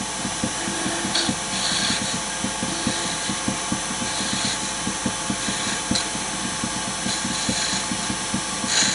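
Wood lathe running while a gouge takes light finishing cuts on a small spindle: a steady machine hum with a fast ticking, and a hiss of cutting that comes and goes several times as the tool touches the wood.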